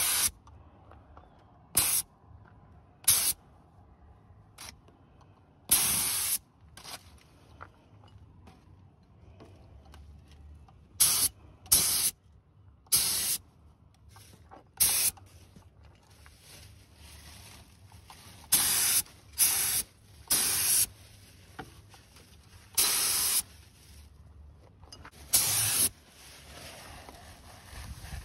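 Compressed-air paint spray gun triggered in short bursts of hiss, about a dozen of them, each lasting less than a second, with quiet gaps between, as base coat is sprayed.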